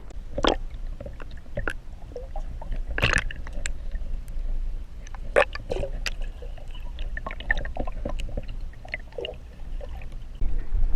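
Water splashing and sloshing, with scattered sharp knocks and clicks, over a steady low rumble.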